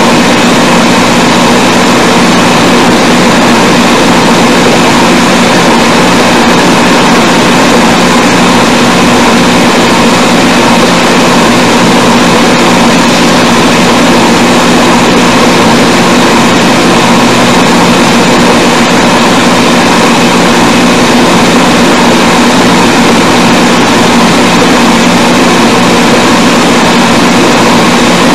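Loud, steady hiss with a constant hum running under it: the background noise of a poor-quality sermon recording, with no voice or music over it.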